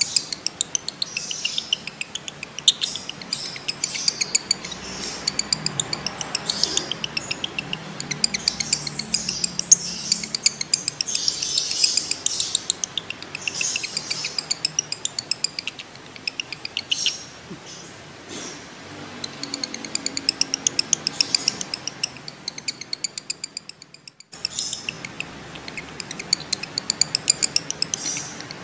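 Male lovebird in breeding condition chattering in a long run of rapid, shrill, evenly spaced notes (the 'ngekek' call), with a brief break near the end.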